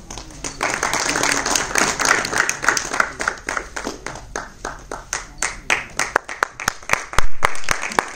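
Audience applauding: dense clapping starts about half a second in and thins into scattered separate claps. Near the end there is one loud thump.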